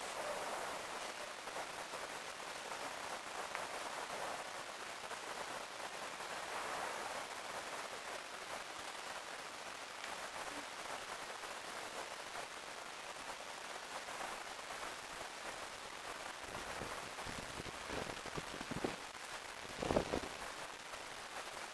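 Faint, steady hiss of outdoor background noise, with a few low bumps near the end.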